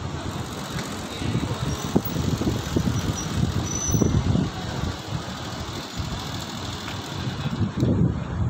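A motor vehicle engine running nearby amid street noise, with irregular low rumbling.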